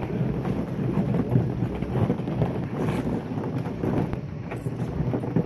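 Plastic ball-pit balls and a plastic kiddie pool rattling and rustling continuously as golden retriever puppies and an adult dog clamber through them, a dense stream of small clicks and scuffs.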